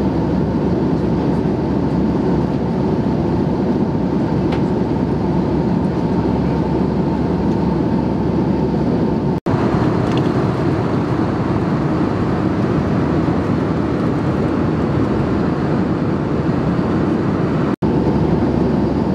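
Steady cabin roar of an Airbus A319-132 at cruise, from airflow over the fuselage and its IAE V2500 turbofan engines, heard from a window seat. It breaks off for an instant twice, near the middle and near the end.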